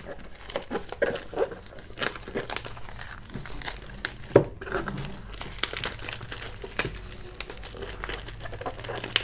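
Wrapper being peeled and torn off a smartwatch's retail box: irregular crinkling and crackling by hand, with a sharper crack about four seconds in.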